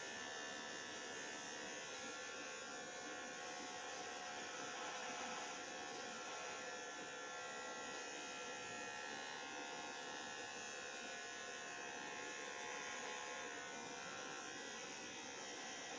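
Electric hair clippers buzzing steadily as they shave the hair at the nape of the neck.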